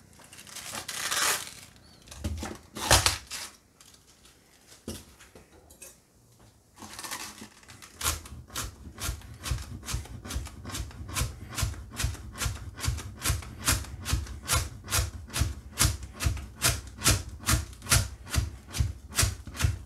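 Nakiri knife shredding white cabbage on a cutting board: quick, even chops, about three a second, each ending in a knock of the blade on the board. The chopping starts about eight seconds in, after a few scattered rubs and knocks.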